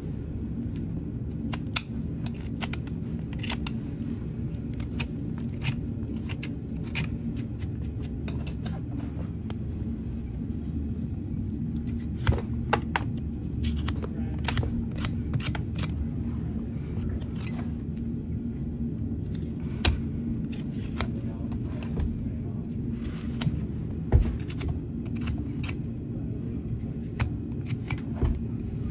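Hoof knife paring a horse's hoof sole and frog: many short, sharp scraping cuts at irregular intervals, over a steady low background rumble.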